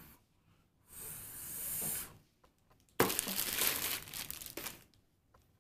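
Thin clear plastic bag crinkling and rustling as a hair dryer is pulled out of it. It comes in two bouts: a rustle that builds about a second in, then a louder burst that starts suddenly about three seconds in and fades out.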